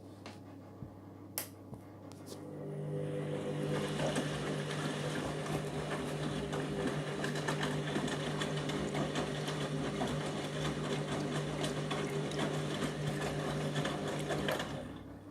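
Candy washing machine's motor turning the drum during the rinse: a steady mechanical hum with rapid ticking and sloshing that starts about two and a half seconds in, runs for about twelve seconds and then stops.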